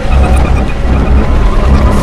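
Film sound mix of a heavy vehicle rumbling, loud and deep, under a throbbing low bass from the musical score.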